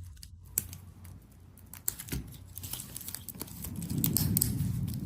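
Handling noise of a metal wristwatch being put on the wrist: scattered light clicks, then a low rustling from about four seconds in.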